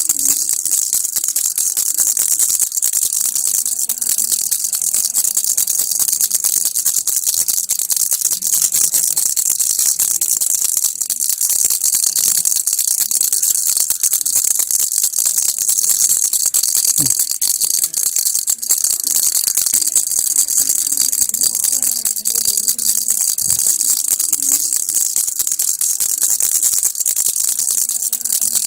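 Baby rattle shaken continuously, a dense, steady, high rattling with no pauses.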